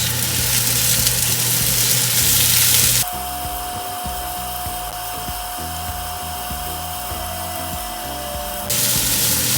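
Onions sizzling as they fry in hot olive oil in a pan. About three seconds in, the sizzle gives way to a quieter stretch with a steady hum-like tone, and the sizzle returns near the end.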